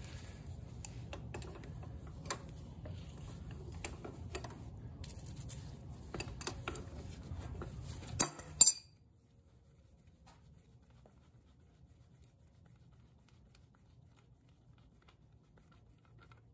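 Scattered light metallic clicks and clinks of hand tools working on a small motorcycle engine's cylinder head, over a faint low hum. About nine seconds in, the sound cuts off to near silence.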